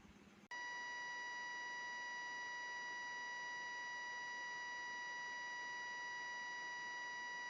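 A steady electronic beep tone cuts in abruptly about half a second in and holds at one unchanging pitch, with no pulsing.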